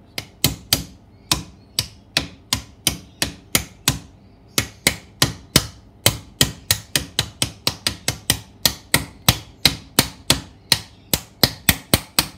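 A hammer tapping the front output bearing down into a Toyota Hilux transfer case. There are dozens of quick, sharp taps, about three a second, with a short pause about four seconds in.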